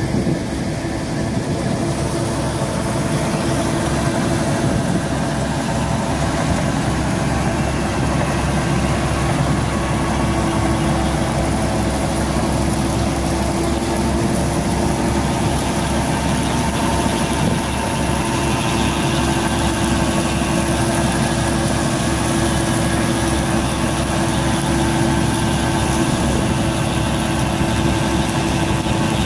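Tractor engine and a tractor-driven United straw reaper (bhusa machine) running together at a steady pace as it picks up and chops wheat stubble into straw: an even, continuous mechanical hum with a constant tone.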